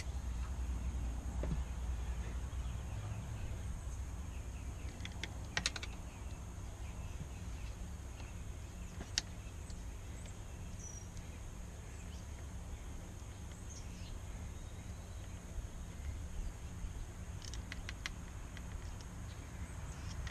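Scattered small clicks and taps of a screwdriver and small parts being worked on an outboard engine's carburetor area, over a steady low hum. A few sharper clicks stand out: about five and a half seconds in, about nine seconds in, and a cluster near the end.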